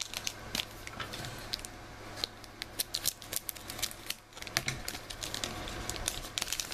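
Trading card pack being opened and its cards handled: a long irregular run of small sharp clicks, snips and crinkles from the wrapper and card stock.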